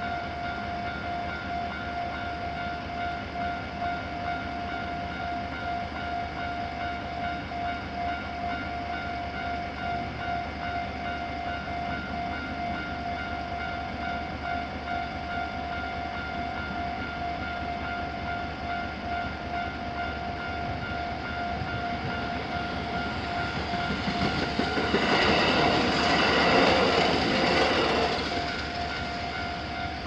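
Japanese railway crossing warning bells ringing in a steady, quick pulse, with a second, slightly faster bell mixed in. About 23 seconds in, a train passes over the crossing for about five seconds, loudest near the middle of its passage, over the bells.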